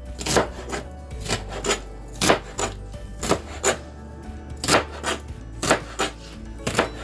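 Knife chopping on a cutting board, sharp uneven cuts about two a second.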